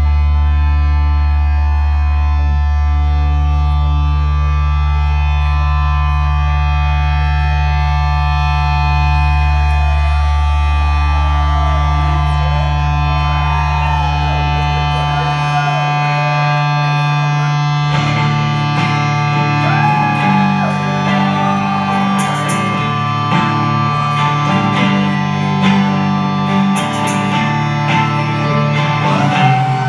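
Live rock band playing through a club PA: a sustained droning chord over a deep bass note. About halfway through the bass drops out, and a few seconds later new lines with sliding, bending notes come in over the drone.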